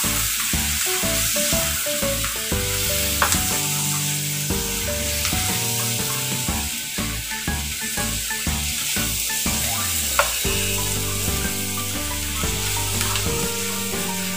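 Pork pieces and chopped onion sizzling in a hot nonstick wok while being stirred with a wooden spatula, with a couple of sharp clicks from the spatula against the pan. Music plays underneath.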